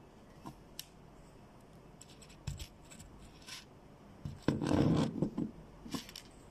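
Handling sounds of a digital caliper and metal snake tubes on a cloth-covered table: scattered small clicks and taps, with a louder rubbing scrape about halfway through.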